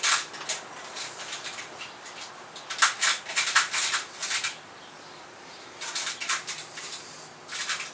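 Metal tools and small parts clinking and rattling in short clusters of handling noise while working on a motorcycle's engine and frame, busiest about three seconds in and again around six seconds.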